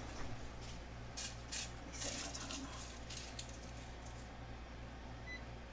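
Light rustling and handling noises at the stove, then a single short electronic beep near the end as the oven timer is set.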